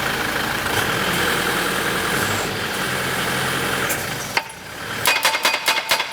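Pile driver's engine running steadily. About four seconds in it stops abruptly, and then a fast, even series of sharp clicks follows, about five or six a second.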